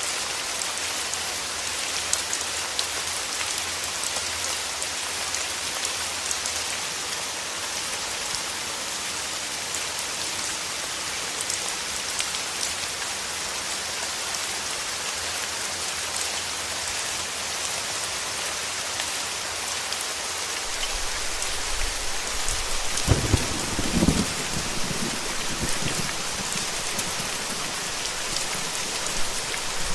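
Steady rain, an even hiss of falling drops. About three-quarters of the way through, a low rumble of thunder swells for a few seconds.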